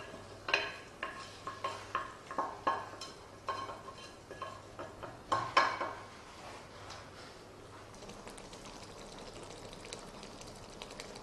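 Wooden spoon knocking and scraping against a ceramic plate and the pot's rim as chopped vegetables are pushed into a curry, about a dozen sharp taps with a short ring, the loudest about halfway through. After that, a soft steady crackle of the curry sauce simmering.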